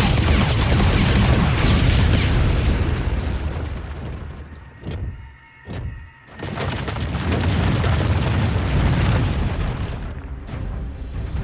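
Rumbling explosion blasts and crashing rock with background music. The rumble drops away about five seconds in, where two short sharp hits sound, then builds again.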